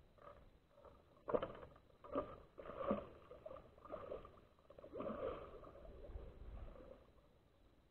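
A hooked carp splashing and thrashing at the water's surface as it is reeled in: a run of irregular splashes, the sharpest about a second in.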